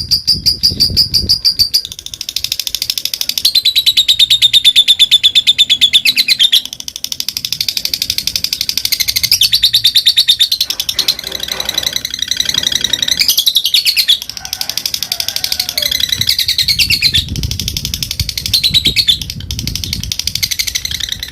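Lovebird singing a long, rapid chattering song (ngekek): fast, unbroken runs of high chirps lasting several seconds each, changing phrase every few seconds.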